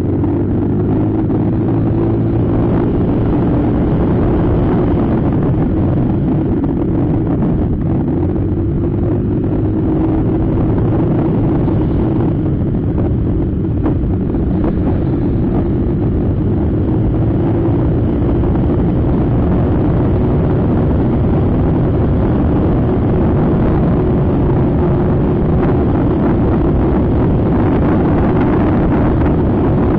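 Motor scooter engine running steadily while riding on the road, with wind and road noise rushing over the microphone.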